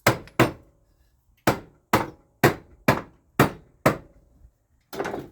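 Hammer blows: two quick strikes, then six evenly spaced strikes about two a second, followed by a short rougher noise near the end.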